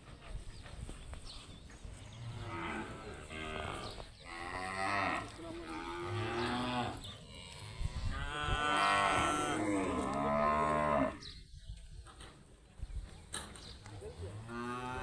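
Cattle mooing, several drawn-out calls one after another, the longest lasting about three seconds. A short lull follows, then another moo begins near the end.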